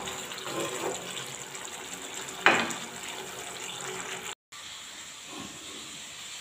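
Thick cauliflower curry simmering in a nonstick pan, a steady hiss. About two and a half seconds in there is one short knock as the wooden spatula is laid on the pan's rim. A moment later the sound drops out briefly, then a fainter steady hiss follows.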